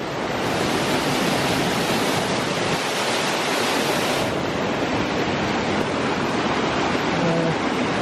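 Waterfall rushing steadily: a loud, even rush of falling water close by.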